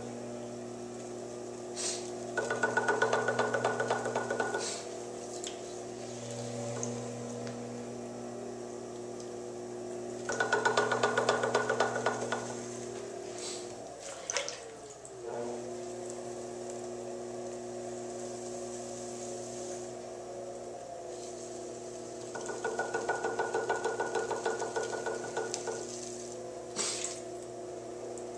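Electric potter's wheel motor humming steadily. About halfway through its pitch sags and then picks back up. Three times, for a couple of seconds each, wet clay swishes and chatters under the hands on the spinning wheel.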